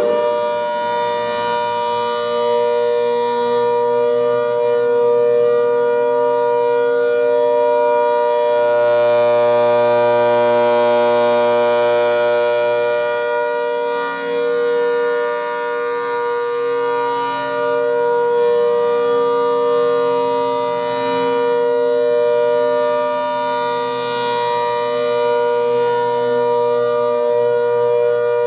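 ACA Hurricane outdoor warning siren sounding a steady alert, holding a chord of several tones just after its pitch has risen to full speed. It is loud, with its loudness slowly swelling and fading.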